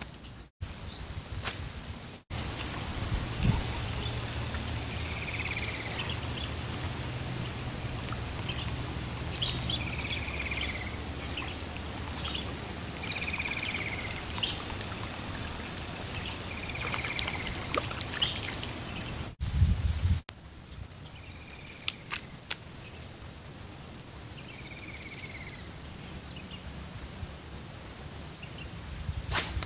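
Outdoor nature sound: a steady high insect drone, with a bird repeating a short falling call every few seconds over higher chirps. A low rumble runs under the middle part.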